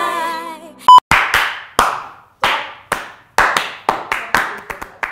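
Three men clapping their hands out of step: about a dozen loose, unevenly spaced claps. Before them comes the tail of a jingle fading out, then a single short, loud, high beep, which is the loudest sound.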